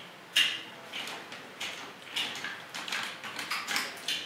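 Toy pieces clicking and knocking as a Shark Zord tail-half sword is handled and fitted onto the Jungle Pride Megazord's arm: a scatter of irregular clicks, the sharpest less than half a second in.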